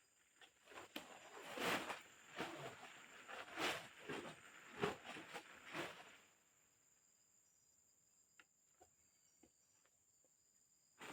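Irregular rustling crunches in forest undergrowth for about six seconds, like someone moving through or handling leaves and brush, then a few faint clicks. A faint, steady high insect drone runs underneath.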